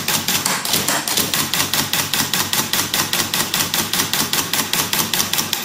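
Solenoid-driven IBM Selectric II typewriter printing on its own, its typeball striking the paper in a steady, rapid run of clacks, about seven a second.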